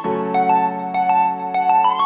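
Background music: a gentle keyboard track of held electric-piano chords with single notes picked out over them, moving to a new chord at the start.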